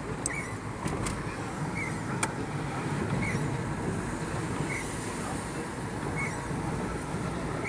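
Car driving along a rain-wet street: steady road and engine noise, with a short high squeak repeating about every second and a half. There are a few sharp clicks in the first couple of seconds.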